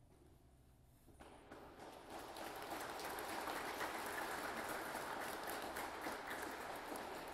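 Audience applauding: the clapping starts about a second in, builds to full strength over the next couple of seconds, then begins to die away near the end.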